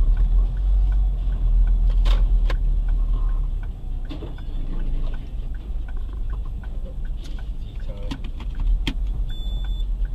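Steady low rumble of a car's engine and road noise as heard through a dashcam inside the cabin, driving slowly in rain, with scattered light ticks and taps throughout. A faint short beep comes near the end.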